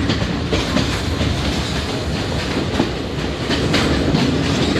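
Passenger train running, heard from inside the carriage: a steady rumble with wheels clicking over rail joints.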